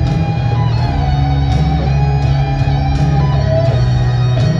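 Live rock band at stadium volume: a lead electric guitar solo of sustained, bending notes over bass guitar and drums.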